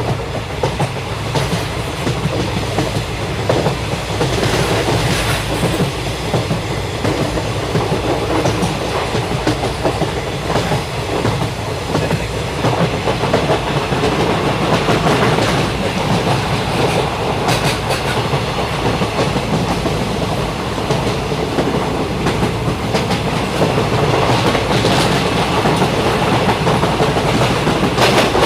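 Passenger train coach running along the track at speed, heard from inside: a steady rumble and rush of wheels on rails, with the clickety-clack of wheels passing rail joints.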